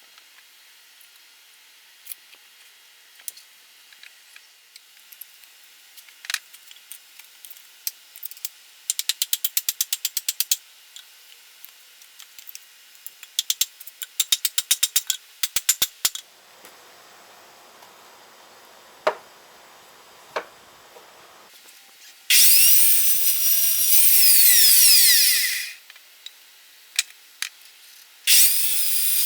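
Handheld power tool, drill-like, working on pallet wood: scattered taps and two rapid runs of clicks, then a loud high-pitched motor whine for about three seconds, its pitch sliding, and another starting near the end.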